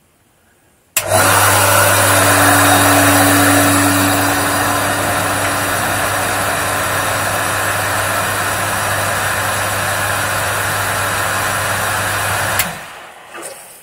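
A household pumping station's electric pump switches on about a second in, runs steadily with a constant hum and a loud rushing hiss for about eleven and a half seconds, then shuts off and spins down. It is drawing air along with the water, which the owner blames on a tap that doesn't seal.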